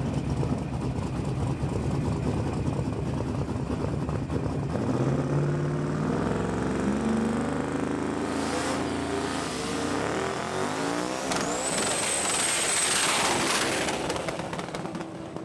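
Drag-race pickup truck's engine rumbling low, then revving higher over a few seconds as it does a burnout. Past the middle, a steady high squeal of spinning tires sounds over the engine, then fades near the end.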